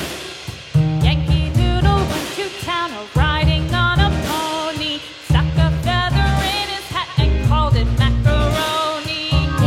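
Music: a song with a wavering sung melody over a heavy, recurring bass beat.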